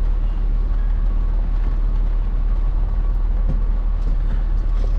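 A car's engine idling: a steady low rumble, with a couple of faint knocks in the second half.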